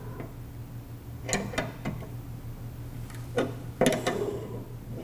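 Steel open-end wrenches clinking against a brass compression fitting on a humidifier water line as the nut is loosened: scattered sharp metallic clicks, with a small cluster of them near the end.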